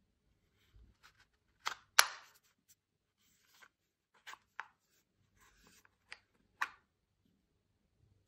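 Umarex T4E HDR 68 revolver being handled: a string of separate clicks and knocks, with one sharp, much louder crack about two seconds in.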